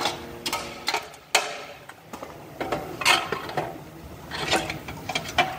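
Metal steering-head parts of a motorcycle frame clinking and knocking as the bearing cups and front fork stem are fitted into the head tube: a string of irregular sharp metal clicks, some ringing briefly.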